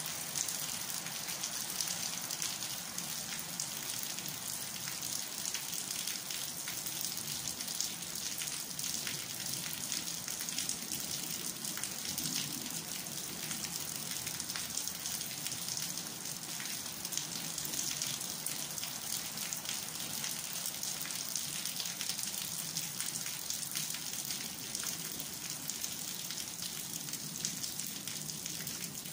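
Steady rain falling, a dense, even patter of many small drops.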